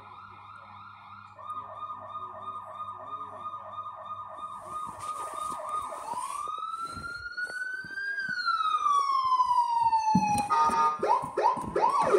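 Ride-on toy police car's electronic siren cycling through its tones: a fast warble, then a slow wail that rises and falls, then quick yelps. It grows louder toward the end.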